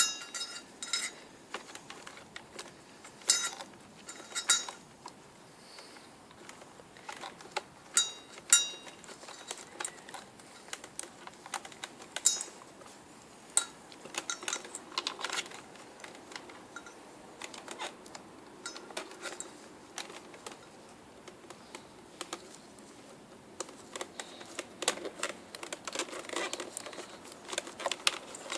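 Irregular clicks, taps and knocks of hands working on a Numatic vacuum cleaner's plastic housing and wiring as the replacement motor's two wires are connected, with a few louder knocks and a short ringing click about eight seconds in.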